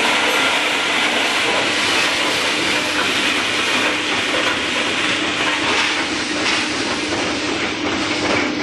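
Crumble feed pellet machine running: a steady, loud mechanical noise with a strong hiss and a faint steady hum underneath.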